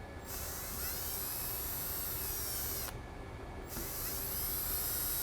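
Power drill-driver backing out two Phillips-head screws: two high whining runs of about two and a half seconds each, with a short pause between.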